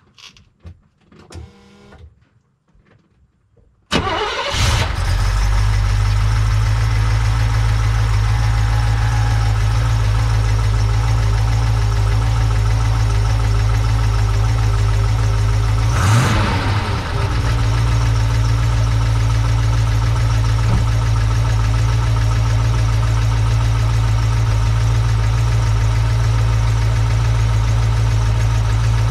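A Mercedes-Benz 280SE 4.5's V8 starts about four seconds in and settles into a steady idle, heard close to its newly installed stainless steel exhaust. The note changes briefly once, partway through.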